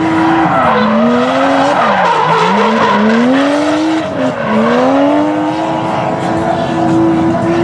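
Nissan 240SX drift car sliding with its tires squealing, the engine revving up and down several times as the throttle is worked through the drift. The revs settle and hold steady for the last couple of seconds.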